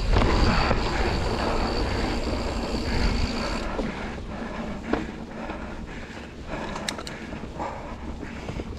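Mountain bike rolling fast down a dirt singletrack: wind buffeting the microphone and tyres running over dirt, with a steady high whine over it for the first few seconds. About three and a half seconds in the wind drops away, leaving the tyres crunching and the bike rattling over small bumps.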